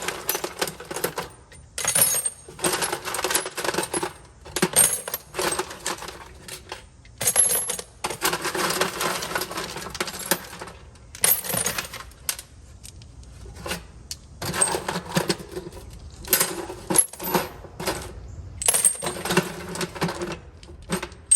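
Loose metal hand tools and sockets clinking and clattering as they are rummaged through and set down, in repeated bursts with short pauses between them.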